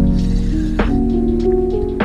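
Background music: held chords with a sharp percussive hit about a second in.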